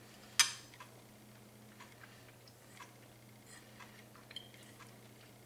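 A metal eating utensil clinks sharply against a dish once, about half a second in, followed by faint small clicks and scrapes of the utensil in the food.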